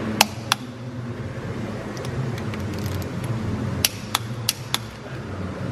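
Click-type torque wrench tightening gearbox drain plugs to 43 N·m, giving a few sharp metallic clicks: two near the start and four in quick succession about four seconds in, over a low steady hum.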